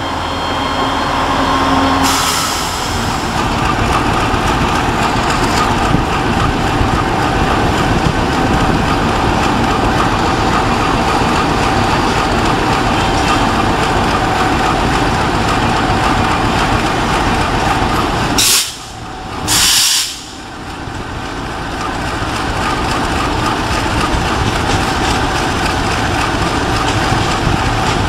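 Diesel train engine running steadily at a railway station. About two-thirds of the way through it drops away briefly, broken by two short hisses.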